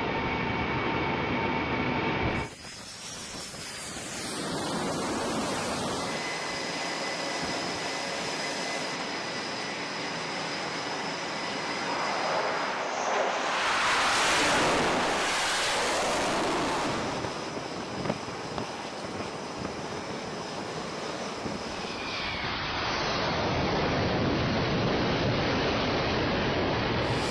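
Jet aircraft noise around F/A-18 Hornets, from inside the cockpit and on a carrier flight deck, changing abruptly several times. A louder rushing swell of jet noise lasts a few seconds around the middle.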